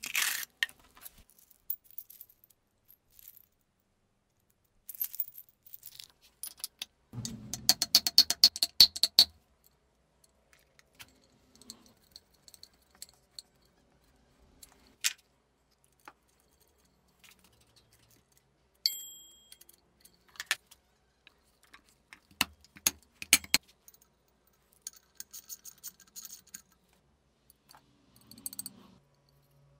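Small metal parts and tools being handled while an old electric motor is reassembled: parts clinking and rattling, with a dense burst of rattling a few seconds in that is the loudest. Later there is a short metallic ring and light hammer taps on the cast-iron housing.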